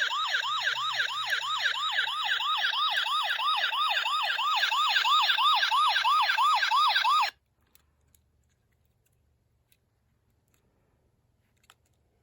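Electronic siren of a patrol siren lamp sounding a fast yelp: a rising whoop repeated about three times a second. It cuts off suddenly about seven seconds in, followed by a few faint clicks.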